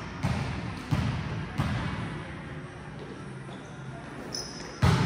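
Volleyball impacts: three sharp thuds about 0.7 s apart in the first two seconds, then a louder hit near the end, with a short high squeak just before it.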